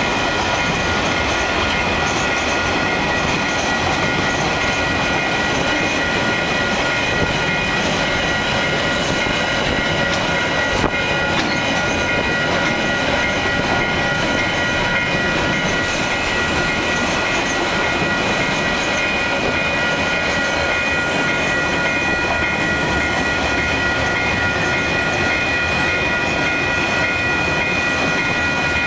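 A long freight train of box and container wagons rolling steadily past, with the clickety-clack of wheels on the rail joints. Over it runs a steady high-pitched ringing from the level crossing's alarm bells.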